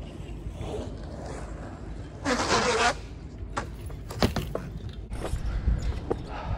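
BMX bike on a concrete skatepark: a loud harsh rasp lasting under a second about two seconds in, then sharp clacks from the bike, the strongest a little after four seconds as it lands from a high jump, over the low rumble of tyres rolling on concrete.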